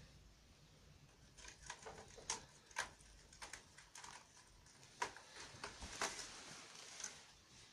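Faint, irregular light taps and clicks, about a dozen spread unevenly over several seconds.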